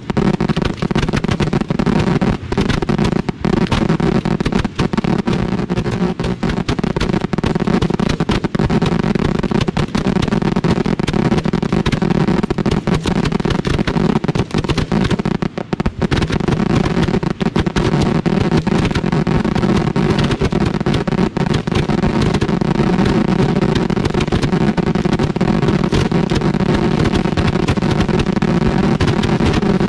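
Fireworks finale fired from ground mortar racks at close range: a dense, unbroken barrage of shell launches and bangs, so rapid that the shots run together into one continuous din. There is only a brief lull about halfway through.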